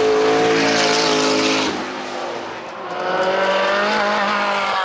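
Supercar engines running at high revs: one loud engine note that eases off about 2 s in, then a second that swells and climbs in pitch from about 3 s.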